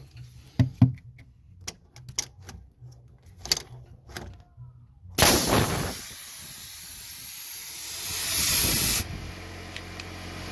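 A few light knocks and clicks, then compressed air hissing loudly from a pneumatic nail gun for about four seconds before it drops to a quieter hiss. The air escapes as soon as the air hose is plugged in, a fault that has put the nail gun out of action.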